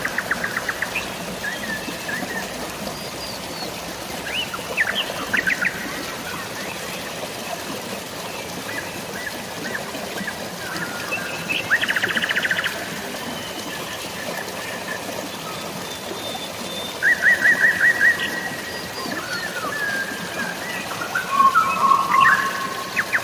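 Several birds chirping and trilling over a steady hiss of light rain and flowing water. Quick rattling trills come in short spells, around five seconds in, around twelve seconds, and again near seventeen seconds, with a lower warbling call near the end.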